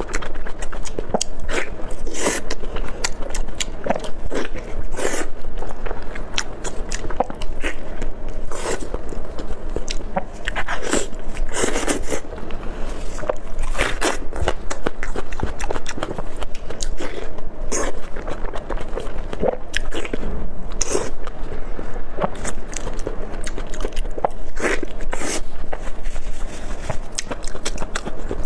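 A person eating: biting and chewing with wet mouth sounds, and irregular sharp smacks and clicks throughout.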